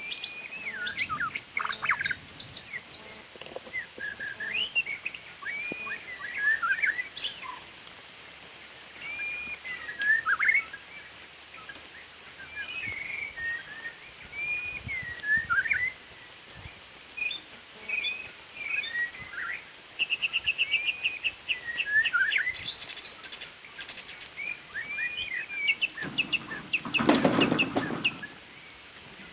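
White-rumped shama singing a long run of varied, quick whistled phrases with sharp trills, and a loud burst of wing flapping near the end.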